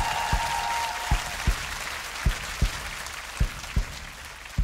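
Studio audience applauding, over low drum thumps that come in pairs about once a second; a held tone ends about a second in.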